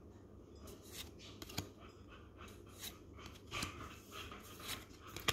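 Pokémon trading cards handled in a stack: soft rustles and light clicks as cards are slid one at a time from the front to the back, at irregular intervals.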